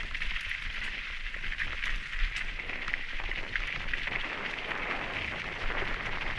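Mountain bike rolling downhill over loose rocky gravel: tyres crunching and crackling on stones, with frequent small clicks and rattles from the bike, over a steady low wind rumble on the microphone.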